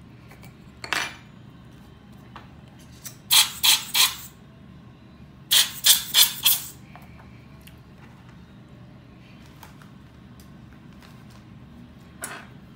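Rubber hand air blower puffing air at a camera lens to clear dust: a run of three quick hissing puffs, then after a short pause a run of four. A single short hiss comes about a second in and another near the end.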